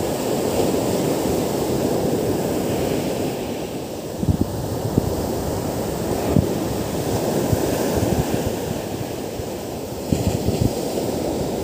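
Ocean surf breaking and washing up a sandy beach in a steady rush, with a few short low thumps from wind gusting on the microphone.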